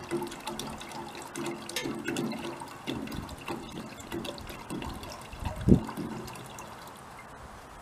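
Water being poured from a 2-litre plastic bottle into the small gasifier's water tank. A single low thump a little past two-thirds of the way through is the loudest sound.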